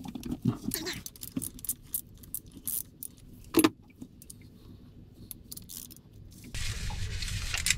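Metal clinks and scattered clicks of a socket being fitted to a timing-belt pulley bolt, one louder clack a bit past the middle. From about six and a half seconds in, a ratchet wrench clicks rapidly and steadily as the bolt is undone.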